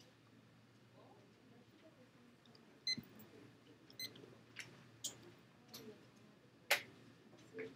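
Faint handling sounds on a desk: scattered light clicks and taps as a sheet of paper and the camera are shifted about, the loudest tap near the end. Two short high beeps come about three and four seconds in.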